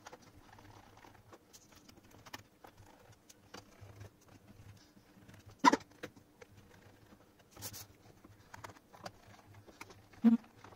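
Handling sounds of a laptop's aluminium bottom panel being unscrewed: scattered small clicks and taps of a screwdriver and fingers on the metal case, with two sharp knocks, one about halfway and one near the end as the laptop is moved on the table.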